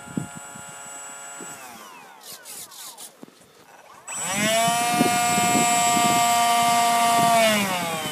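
Electric ducted fans of a radio-controlled F/A-18 jet whining. The whine winds down and stops about a second and a half in, then about four seconds in it spools up sharply to a loud, steady high whine that winds down again near the end.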